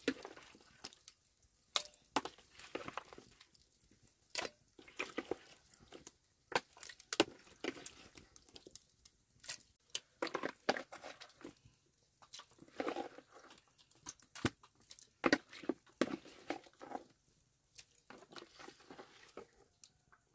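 Irregular handling sounds: sharp clicks and light knocks with short stretches of rustling, coming in clusters with quiet gaps between.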